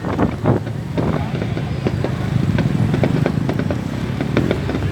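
Scattered sharp pops of fireworks going off, several a second at irregular spacing, over a steady low rumble of motorbike traffic and crowd noise.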